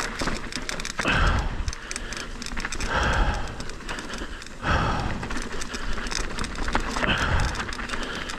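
A mountain biker breathing hard in deep breaths about every two seconds, over the clicking and rattling of a full-suspension mountain bike rolling down a rough dirt trail.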